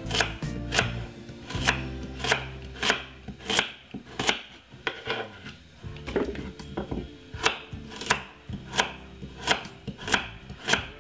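Kitchen knife chopping peeled carrots on a wooden cutting board: a steady run of sharp knocks, about one and a half a second.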